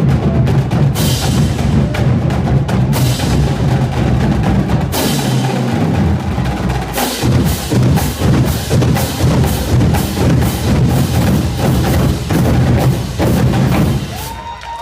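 High school marching drumline playing a dense, fast passage on snare and bass drums, with many sharp crashing hits over low bass-drum tones. It stops abruptly just before the end: the close of the piece.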